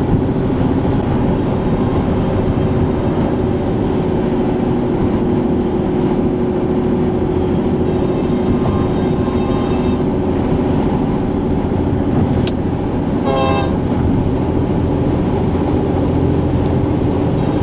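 Steady rumble of a freight train running nearby, heard over vehicle noise, with one short train-horn blast about thirteen seconds in.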